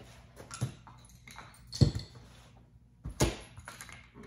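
A few sharp metal clunks and knocks from a curved steel car part being handled and set down on a workbench. The loudest comes about two seconds in with a brief metallic ring, and another follows about a second later.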